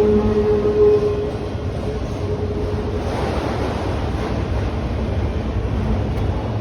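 Autorack freight cars rolling past at speed: a steady rushing rumble of steel wheels on rail. A faint steady whine fades out in the first three seconds.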